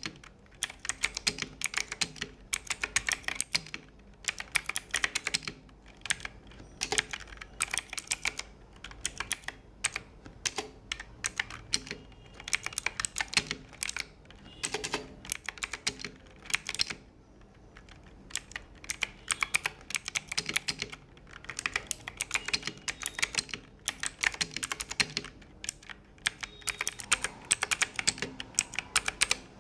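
Fast typing on a Bajeal K100 mechanical keyboard with clicky Outemu blue switches: dense clacking keystrokes in runs of a second or two, broken by short pauses.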